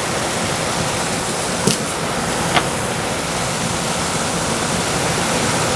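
Onions, garlic and mushrooms sizzling steadily in oil and butter in a frying pan, with two light taps of a utensil.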